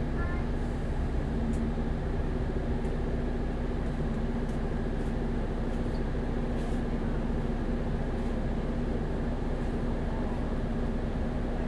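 A double-decker bus's diesel engine running at a steady pace, a constant low hum with no revving.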